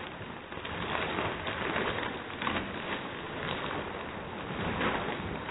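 A bag of tortilla chips being squeezed and crushed by hand: continuous crinkling of the bag with dense, irregular crackles of chips breaking inside.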